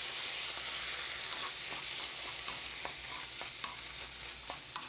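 Baby squid sizzling steadily in hot grapeseed oil and freshly added mirin in a deep pan over high heat, with a plastic spatula stirring them and scraping or tapping the pan now and then.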